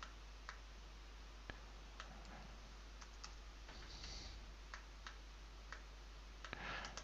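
Faint computer mouse clicks, about ten sharp clicks at irregular intervals, over a low steady hum.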